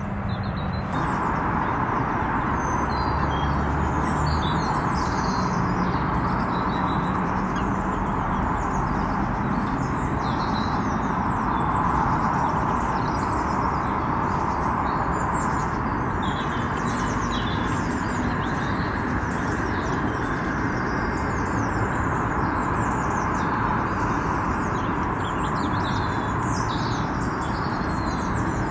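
Small birds chirping and twittering throughout, over a louder steady rushing background noise that sets in about a second in.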